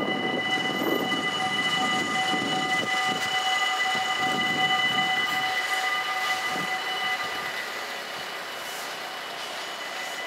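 Warning bells of a Dutch automatic half-barrier (AHOB) level crossing ringing steadily as the barriers close, signalling an approaching train. Most of the ringing drops out about three quarters of the way through, leaving one fainter high tone.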